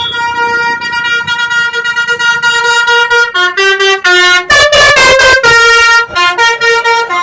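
Bus 'telolet' horn, a multi-tone musical air horn, playing a tune. A chord is held for about three seconds, then a quick run of short notes steps up and down in pitch, with the loudest blast about four and a half seconds in.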